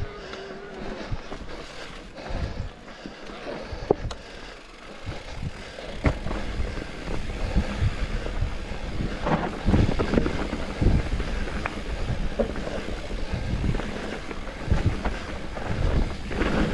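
Specialized Turbo Levo electric mountain bike ridden over a dirt and rock trail: a steady rumble of tyres on the ground with frequent sharp knocks and rattles from the bike, busier and louder in the second half.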